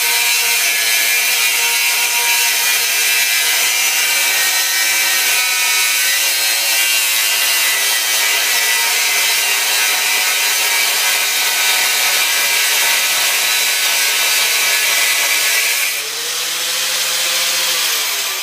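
Angle grinder cutting into the steel shell of an air tank, a loud, steady, high-pitched grinding. About sixteen seconds in the disc comes off the metal and the grinder runs free, its pitch rising and then sagging.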